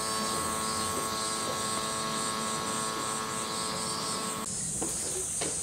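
Summer cicadas sizzling in a high, pulsing drone over a steady mechanical hum with several pitched lines. The hum cuts off abruptly about four and a half seconds in, and the cicadas then run on evenly with a few faint knocks.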